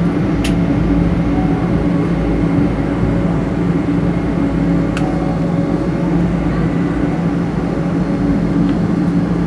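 Steady cabin noise inside a Boeing 777-300 taxiing after landing: engines at idle and cabin air rushing, with a steady low hum. Two short clicks, about half a second in and about five seconds in.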